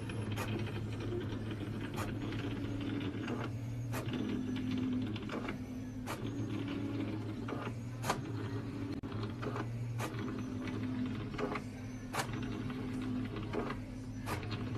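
A small motorised machine running with a steady hum and a whirring tone that switches on and off, with a sharp click about every two seconds.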